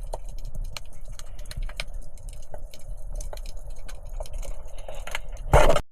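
Underwater ambience heard through a camera housing: a steady low rumble with scattered crackling clicks. Near the end comes one loud, sudden burst, a speargun firing.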